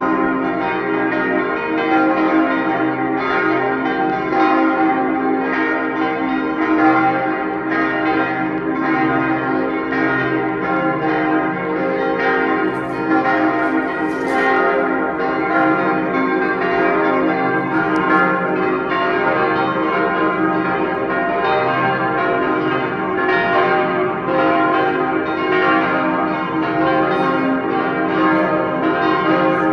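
Church bells pealing from the church tower: several bells ringing together in a continuous, overlapping peal.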